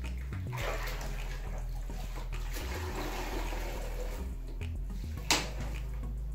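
Water running and splashing, with one sharp knock about five seconds in, over background music.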